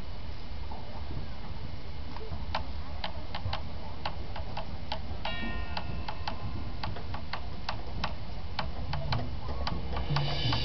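Marching band percussion tapping sharp, clock-like clicks at about three a second, with a single ringing mallet-percussion note about five seconds in. Low sustained band tones start swelling near the end.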